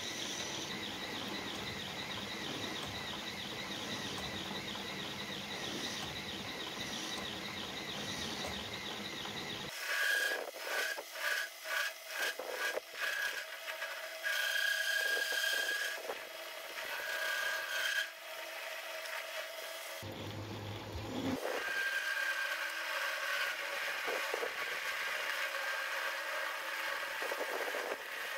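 A metal lathe is cutting a turning metal workpiece with a steady scraping hiss and a faint high whine. About ten seconds in, the sound changes to short bursts of cutting squeal, several in quick succession, then longer squealing passes. Near the end it settles into a steady cutting hiss again.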